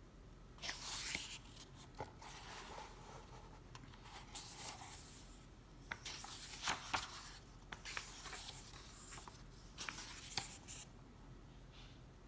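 Paper pages of a hardcover book being turned and smoothed flat by hand: several soft papery swishes and rustles, with a few light ticks about six and seven seconds in.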